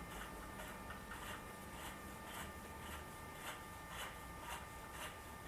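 Faint, soft ticking and rubbing of metal threads, roughly twice a second, as a threaded piece is screwed by hand into a two-post car lift's hydraulic cylinder.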